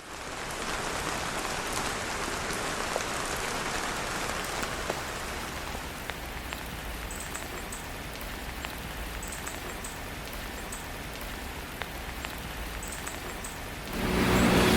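Steady hiss of rain falling, with a few faint high chirps. Near the end a louder, steady low hum comes in.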